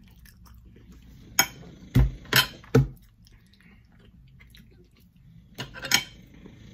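Eating utensils clinking against a plate or dish: four sharp clinks between about one and a half and three seconds in, then a few more near the end.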